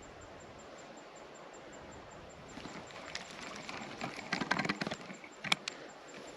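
Irregular crunches and clicks of footsteps over creek rocks and brush. They start about two and a half seconds in after a faint steady hiss, are densest a second or so later, and end with one sharp click.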